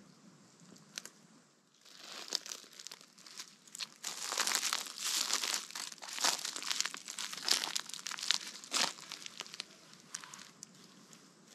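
Footsteps rustling and crunching through dry leaf litter. They start about two seconds in, are loudest in the middle, and fade away near the end.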